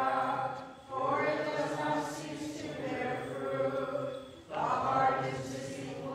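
Byzantine liturgical chant sung by voices, in long held phrases broken twice by short pauses for breath.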